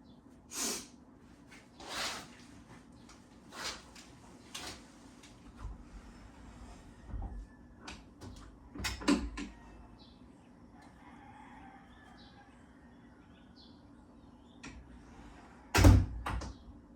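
Scattered knocks and brief rustling noises, with a loud bang near the end.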